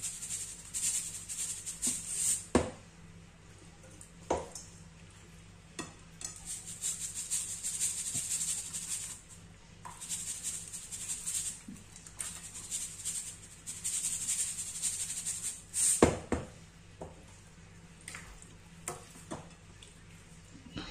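Salt shaken from a plastic salt shaker onto raw fish: a dry, rattling hiss in several bursts of one to three seconds, with a few sharp knocks between them.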